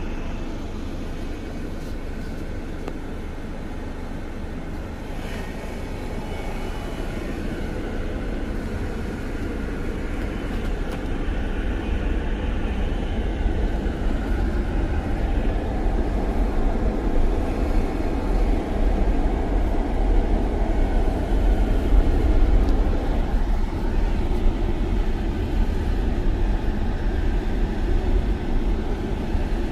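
Car driving, a steady rumble of engine and tyres that grows louder after about ten seconds as it picks up speed.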